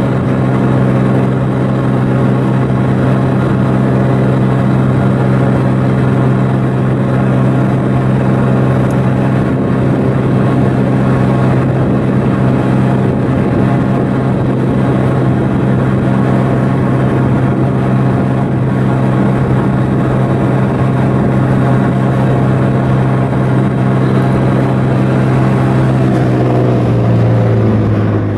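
A ship's diesel engine running steadily with a deep, even hum. Near the end its pitch drops as it slows down.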